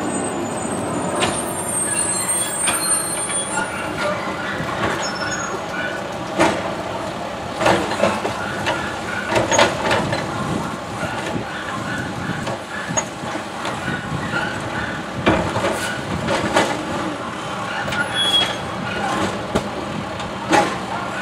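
Automated side-loader garbage truck running at the curb while its hydraulic arm grips a wheeled trash cart, lifts it and tips it. Engine and hydraulics run steadily under repeated metallic clanks and knocks from the arm and cart.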